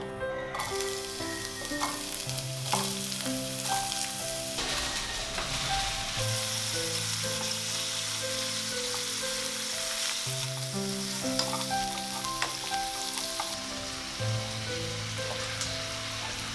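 Oil and food sizzling steadily in a frying pan on a gas stove as squid, shrimp and onion are stir-fried, starting about half a second in, with occasional light taps of wooden chopsticks against the pan. Soft instrumental background music plays underneath.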